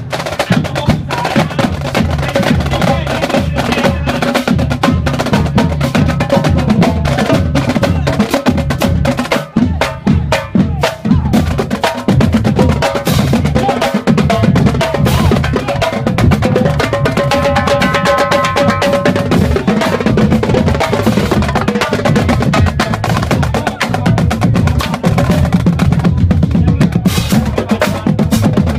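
School marching drumline of snare, tenor and bass drums playing a fast, dense cadence; the playing briefly thins out about ten seconds in.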